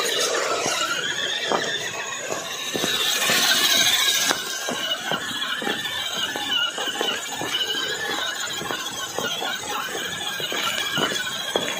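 Electric motor and gearbox of a 1:10 scale RC crawler whining, the pitch wavering up and down, over many short clicks and knocks. The whine is loudest about three to four seconds in.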